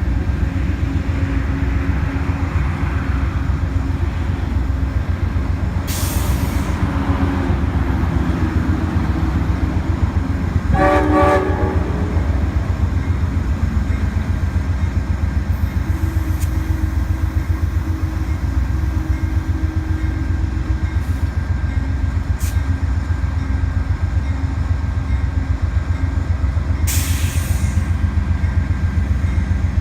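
Amtrak passenger locomotive's diesel engine running with a steady deep rumble. About eleven seconds in comes a short horn blast of about a second, and twice there is a brief burst of air hiss.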